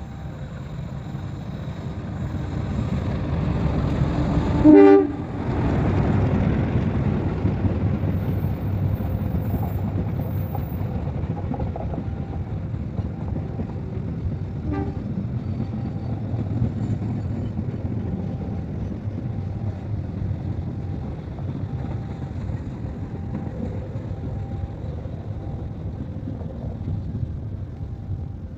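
CC206 diesel-electric locomotive and its train approaching and passing, with one short, loud horn blast about five seconds in. After the blast, the engine and the cars rumbling over the rails go on steadily, slowly fading, with a faint brief horn toot in the middle.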